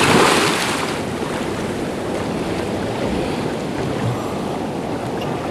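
A scuba diver in full gear splashes into the sea at the start, then the churned water sloshes and fizzes steadily around him.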